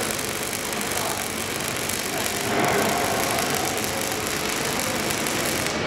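Robotic MIG welding arc on steel plate, a steady crackling hiss that stops abruptly near the end as the weld ends.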